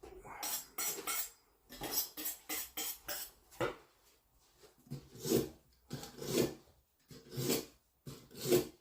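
A dulled kitchen knife drawn again and again through a knife sharpener. Quick strokes in the first few seconds, then slower single strokes about a second apart.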